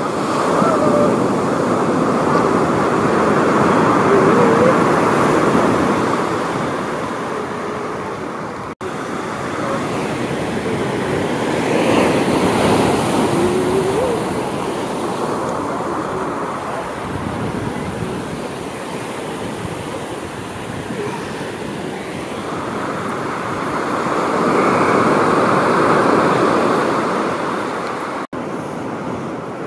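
Pacific surf breaking and washing up the beach: a continuous rushing wash that swells and fades, building to a loud peak three times.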